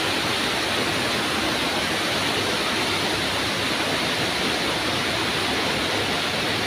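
Steady rush of flowing river water, an even, unbroken noise.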